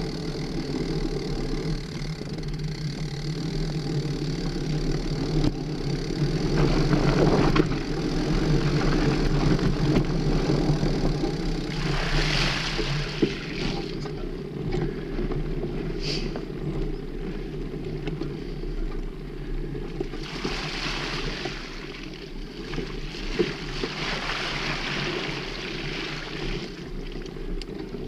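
Mountain bike riding over a dirt forest trail, heard from the rider's action camera: a steady low rumble of tyres and wind on the microphone, with a few swells of hiss along the way.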